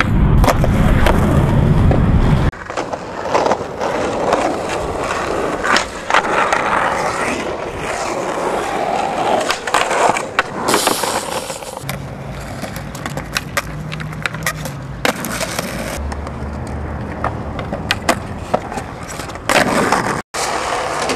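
Skateboards rolling on concrete and asphalt, with sharp clacks of tails popping and boards landing. The sound changes abruptly several times from take to take.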